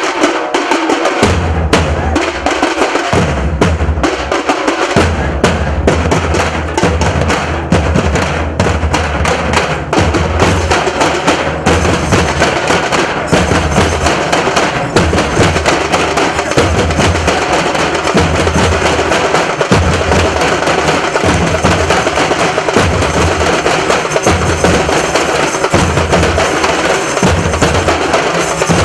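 Nasik dhol drum ensemble playing loud, dense drumming, with deep bass strokes that settle into a steady pounding beat after the first few seconds.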